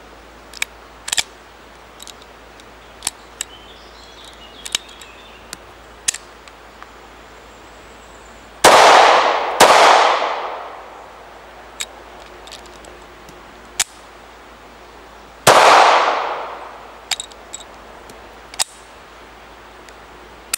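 Three shots from a blank-firing pistol loaded with 9mm P.A.K. blanks: two about a second apart roughly nine seconds in, and a third some six seconds later. Each shot is followed by a long echo dying away. Scattered sharp clicks come before and between the shots.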